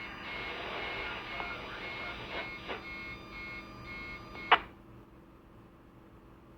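Radio receiver static with a faint, repeating interference beep and a few light clicks, ending in a sharp squelch-tail burst about four and a half seconds in, after which the hiss cuts off.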